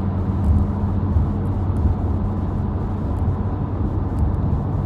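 Steady road and engine noise inside a moving car's cabin: an even low drone with a hum.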